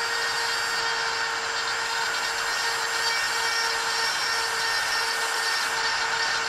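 Handheld rotary tool running at a steady speed with a small burr bit grinding the cable exit of a plastic motorcycle throttle grip, a steady whine over a grinding hiss. The burr is cleaning and smoothing the exit so the throttle cable runs without fraying.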